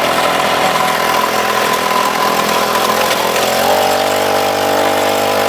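Small engine of a Snapper riding mower running steadily while being driven, its pitch stepping up a little about three and a half seconds in.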